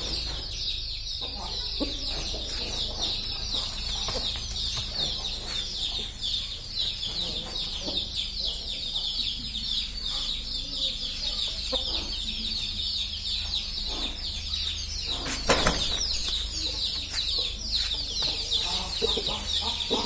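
Chickens in a pen keep up a steady, rapid chatter of high, falling cheeps, with a low hum underneath. A single sharp knock comes about fifteen seconds in.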